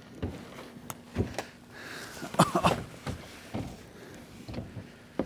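Irregular knocks, bumps and rustling as a person steps into a Dagger kayak on land and sits down, the hull and paddle knocking, with the loudest clatters in the middle.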